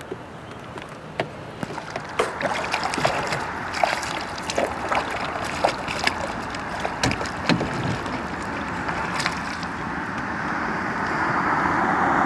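Irregular clicks and knocks of gear being handled in a small fishing boat, over a steady rushing noise that grows louder near the end.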